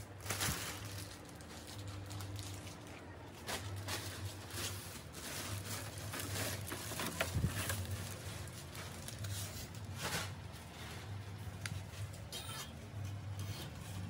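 Plastic wrapping crinkling with handling clicks and knocks as a new window air conditioner is unwrapped and handled, with one louder knock a little past halfway. Under it runs a low hum that comes and goes.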